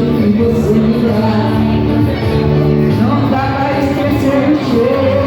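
Music: held melody lines with a few upward slides over a steady sustained accompaniment.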